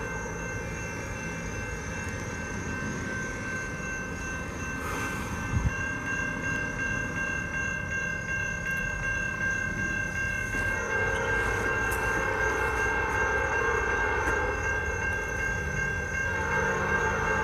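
Approaching train heard before it comes into view: a distant locomotive horn over a steady low rumble. The horn swells about eleven seconds in and again near the end, louder each time.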